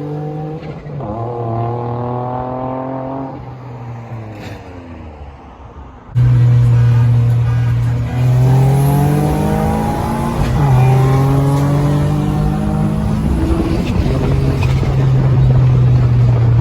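Turbocharged Infiniti G35's VQ35 V6 accelerating hard, its pitch climbing through the gears and dropping back at each shift. The first pull eases off and quietens about three seconds in; about six seconds in the sound jumps abruptly louder and several more climbing pulls follow.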